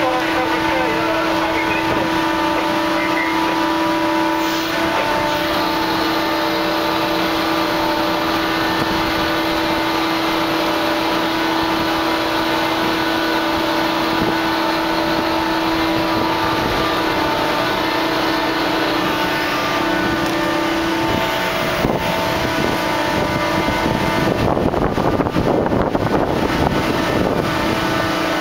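Steady machinery hum with several held tones, from a ship's deck machinery running while a freefall lifeboat is lowered on its davit. From about 24 s to 27 s, wind buffets the microphone over it.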